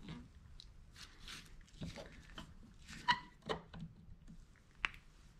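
Flathead screwdriver scraping and clicking in the notches of an Integra rear brake caliper piston as it is turned bit by bit to unscrew the piston from its bore, with a short ringing metal click about three seconds in and another sharp click near the end.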